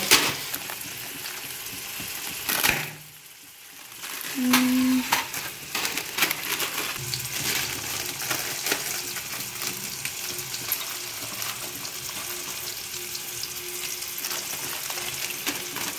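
Chopped onion and tomato sizzling steadily as they fry in oil in a wok, being browned. Over it comes the crinkle and tearing of plastic noodle packets being opened. The sizzle briefly drops away about three seconds in.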